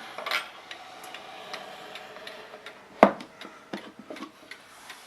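A 1917 Sessions beehive clock's 8-day movement ticking, with handling noise as the clock is turned around: a scrape near the start and a sharp knock about three seconds in.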